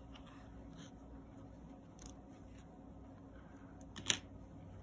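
Faint rustling of yarn being drawn through a crocheted piece with a darning needle and handled, with a few small ticks and one sharper click about four seconds in.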